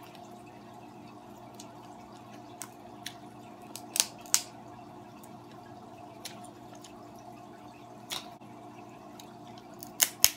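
Scattered sharp clicks and snaps of blue crab shell being picked apart by hand and eaten, the loudest a pair about four seconds in and another pair near the end, over a steady low hum.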